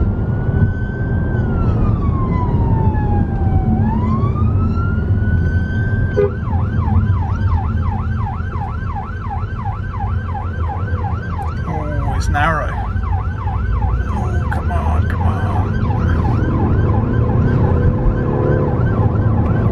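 Police siren on a wail, sweeping slowly up and down, which switches about six seconds in to a fast yelp of about three sweeps a second. There is a short harsh blast about halfway through, and the car's road and engine noise runs underneath.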